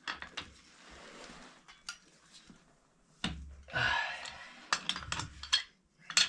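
Irregular metallic clinks and clanks of pipe wrenches and metal pipe fittings being handled and tightened on a sand-point well pipe, with one rough noise lasting about half a second a little past the middle.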